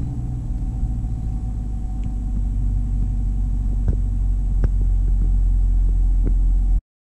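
2016 Camaro SS's 6.2-litre LT1 V8 idling just after a warm start, heard from inside the cabin, with its NPP dual-mode exhaust valves held open by the pulled fuse 51. A steady low idle that grows slightly louder, with a few faint clicks, and it cuts off suddenly near the end.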